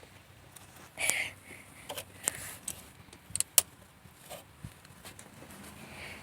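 Irregular clicks, knocks and short scrapes of hand tools and plastic parts being handled while a car's evap purge valve and its hose are worked loose.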